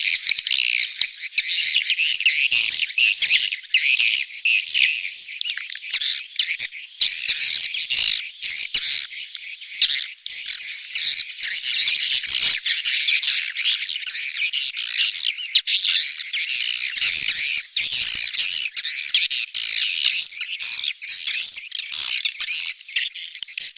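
Edible-nest swiftlets chattering and twittering in a dense, continuous high-pitched chorus: a swiftlet courtship and breeding call ('birahi beranak') of the kind played from swiftlet nest houses.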